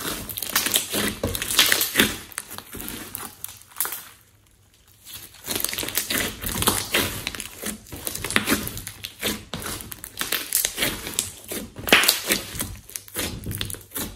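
Hands kneading, squeezing and folding a large lump of thick clay-mixed slime, giving a rapid run of wet squelches, clicks and crackles from trapped air. It drops out for about a second a third of the way in, then carries on.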